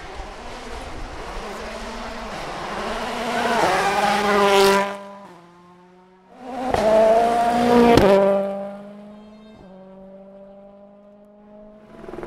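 Rally cars at full throttle on a stage, the engine pitch climbing and stepping through gear changes. There are two loud passes with an abrupt cut between them about five seconds in, then a quieter, steadier engine tone.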